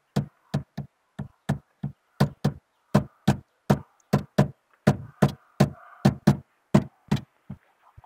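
A steady series of sharp knocks or taps, about three a second, some coming in quick pairs.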